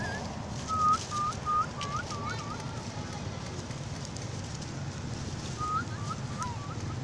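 Baby macaque crying in short high-pitched calls, in two quick series of about six each: one about a second in and another near the end.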